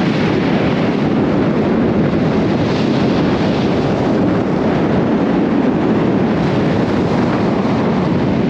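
Steady wind buffeting the microphone: an even, loud rumble with no break.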